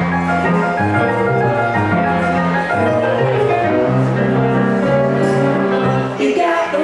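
Live duo playing an instrumental passage on hollow-body electric guitar and stage keyboard over a steady bass line. A man's singing comes in near the end.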